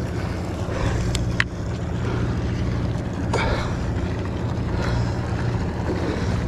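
Sportfishing boat's engine running with a steady low hum under the wash of water along the hull. A couple of brief clicks come a little over a second in.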